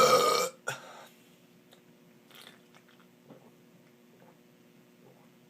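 The end of a loud man's burp, which cuts off about half a second in and is followed straight after by a brief second, smaller sound. After that come only faint small mouth and handling noises.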